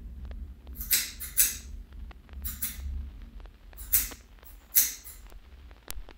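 Hair-cutting scissors snipping through hair: several short, crisp snips at uneven intervals, some in quick pairs, over a steady low hum.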